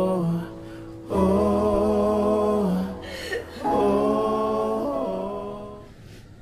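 Closing bars of a ballad: a singer holds three long, wordless notes, the last one fading out near the end.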